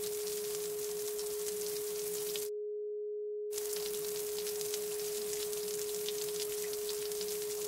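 A steady pure tone held at one middle pitch, over a rain-like hiss with scattered patter. About two and a half seconds in, the hiss cuts out for about a second while the tone carries on unchanged.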